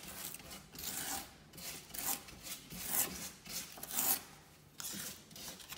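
Metal spatula dabbing and scraping thick concrete-effect paste onto a fireplace surface to build texture: a run of irregular rasping strokes, roughly one or two a second.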